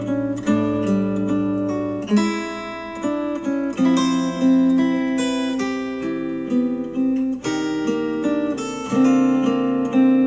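Instrumental acoustic guitar music, strummed and plucked chords changing every second or two, played back through a JBL Xtreme 3 Bluetooth speaker.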